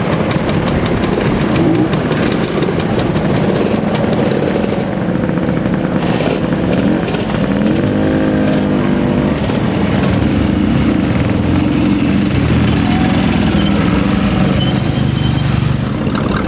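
Small engines of vintage motor scooters and motorcycles running as they ride slowly past in a line. About eight seconds in, one engine's pitch rises and falls briefly.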